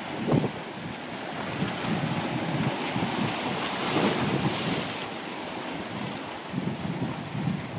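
Ocean surf breaking and washing over shoreline rocks in a steady wash that swells a little about halfway through, with wind buffeting the microphone.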